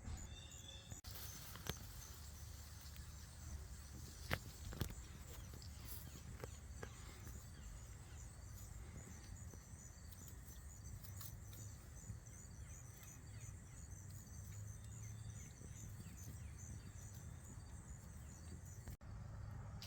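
Faint outdoor ambience: a steady low rumble under a high, rhythmic chirping, with a few sharp clicks early on.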